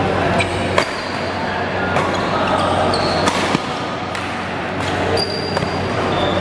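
Badminton doubles rally: sharp cracks of racket strings striking the shuttlecock about once a second, with short high squeaks of shoes on the court floor and a steady low hum underneath.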